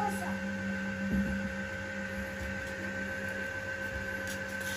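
Steady electrical hum made of a few constant tones, with a soft low thud about a second in.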